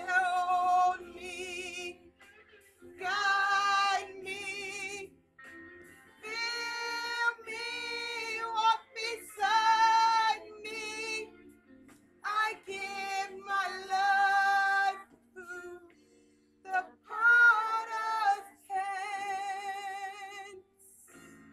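A woman singing a slow worship song in long held phrases with a wavering vibrato, over a soft, steady accompaniment that carries on between her phrases.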